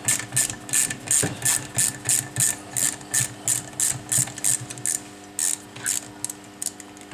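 Ratchet tool clicking in quick, even strokes, about four a second, as the screws holding a chainsaw's carburetor adapter to the cylinder are backed out; the strokes slow and stop near the end.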